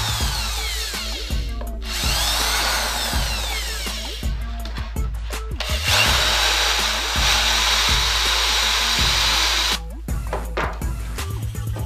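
Corded electric hand drill boring holes through laminated chipboard, running in spells with brief breaks, then stopping about ten seconds in, followed by a few knocks. Background music with a steady beat plays underneath.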